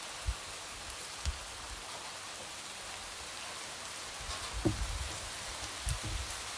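Light rain falling in a steady patter, with single drops tapping now and then and a few soft low thuds, the most noticeable about two-thirds of the way through.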